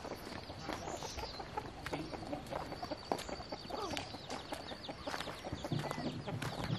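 Chickens clucking, with many quick high chirps.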